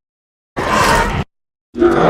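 Custom Gwythaint creature sound effect: a short, harsh growling cry lasting under a second, cut off abruptly into dead silence, then a second cry starting near the end.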